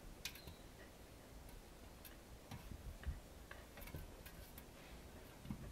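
Faint, irregular clicks and taps of a Pembroke Welsh corgi puppy's claws and paws on a glass tabletop, with a few soft thumps as it shifts on the glass, the strongest about three seconds in.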